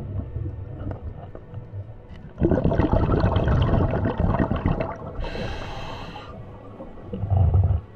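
Scuba diver breathing through a regulator underwater. A crackling rush of exhaled bubbles starts about two and a half seconds in, a hissing inhale follows around five seconds in, and a short low burst of bubbles comes near the end.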